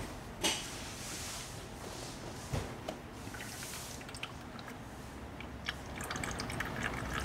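Brake fluid and air spurting and trickling through a clear bleed hose into a plastic bottle as the caliper's bleeder screw is cracked open with the pedal held down, heard as a soft hiss with a couple of small clicks.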